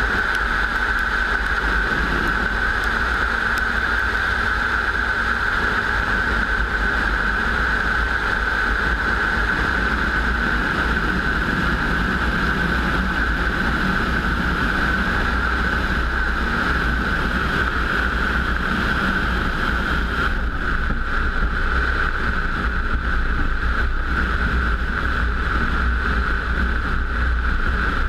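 A steady engine drone held at one unchanging pitch, with low wind rumble on the microphone.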